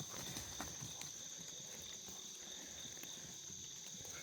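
A steady chorus of night insects trilling in two high-pitched bands, with a few faint light clicks.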